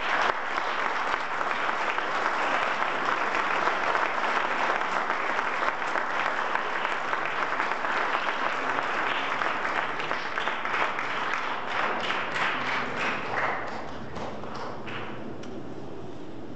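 An audience applauding, many hands clapping together; the applause dies away about three-quarters of the way through, with a few last claps after it.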